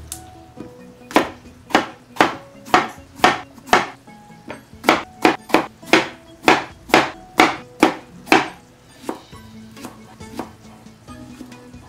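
Chef's knife chopping through long purple eggplant onto a wooden cutting board: a run of sharp knocks about two a second, with a short pause midway, stopping about two-thirds of the way through.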